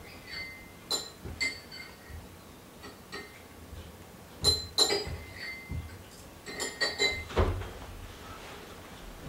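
Light clinks and taps from handling a drop spindle while hand-spinning, coming in small clusters of sharp, briefly ringing clicks, with a soft low bump about seven seconds in.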